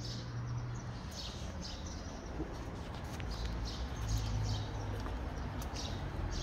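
Small birds chirping in short, repeated high calls over a steady low outdoor rumble.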